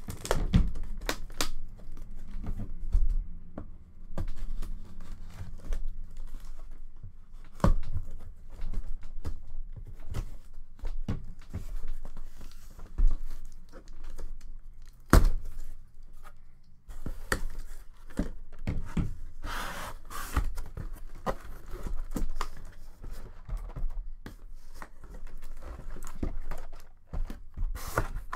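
Cardboard shipping case being opened by hand: tape and cardboard tearing, flaps rustling and crinkling, with irregular knocks and thumps as the box is handled, including one sharp knock about halfway.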